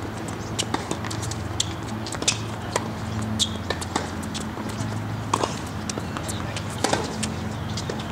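Tennis rally on a hard court: sharp, irregular pops of the ball being struck by racquets and bouncing, with a steady low hum underneath.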